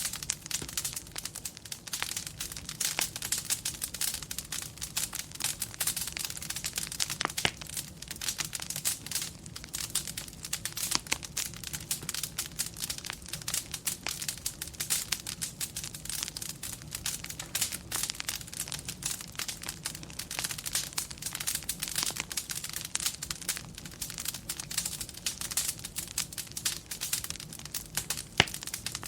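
Fireplace fire crackling: a dense, irregular run of small pops and snaps over a low, steady rumble, with one sharper pop near the end.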